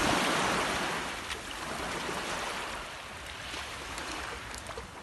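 Small waves washing in over the sand at the water's edge, a hiss that is loudest at the start and fades over the next couple of seconds.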